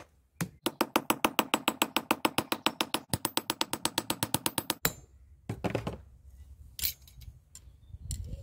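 Hand hammer beating a small steel disc on an anvil: a fast, even run of ringing metal blows lasting about four seconds. A few scattered knocks of metal on metal follow near the end.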